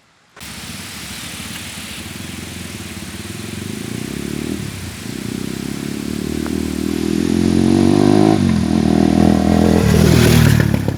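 Crossfire CF250 Twin motorcycle's twin-cylinder engine with a loud exhaust, pulling and rising in pitch as the bike accelerates. The note drops briefly about four and a half and eight seconds in at gear changes, and grows louder towards the end.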